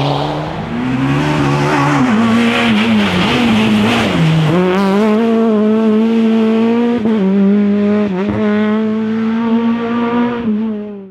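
Rally car engine at high revs, its pitch dipping and rising over the first few seconds, then held steady at a constant high note, with some tyre squeal. The sound cuts off abruptly at the end.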